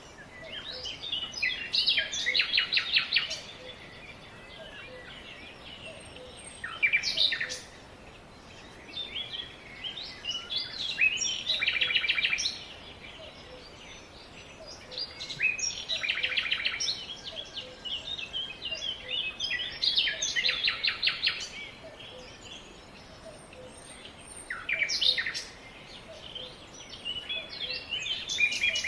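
Songbirds singing: bursts of quick trilled notes and chirps, a phrase every four or five seconds, over a steady background hiss.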